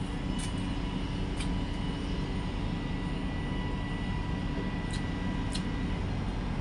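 A steady low mechanical rumble with a faint high hum running through it, and a few faint clicks.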